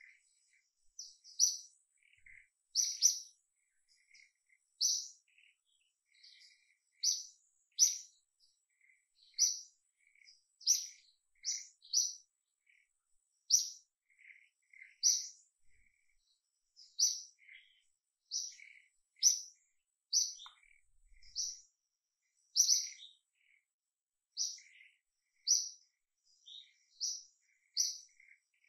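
A bird chirping over and over: short, high chirps about one every second or two, with fainter, lower chirps in between.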